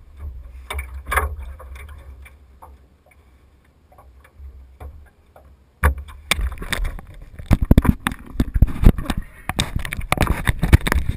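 A hand gripping and moving a GoPro camera in its housing: loud, irregular knocks and rubbing that start suddenly about six seconds in. Before that, a low rumble with a few light taps.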